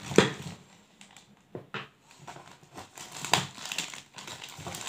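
Clear plastic bag crinkling and rustling as hands open it, with a few sharp clicks and a loud knock just after the start.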